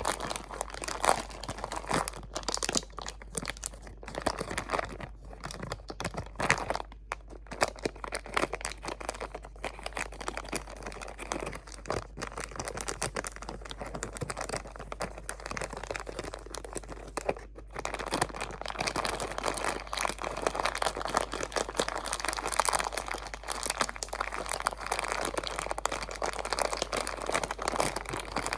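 Crinkly material crumpled and scrunched right against the microphone, a dense, continuous crackling. It pauses briefly about a quarter of the way in and again a little past the middle, then goes on fuller to the end.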